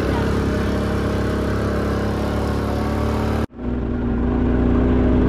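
Quad bike (ATV) engine running steadily as it drives across sand. The sound breaks off for an instant about three and a half seconds in, then the engine carries on.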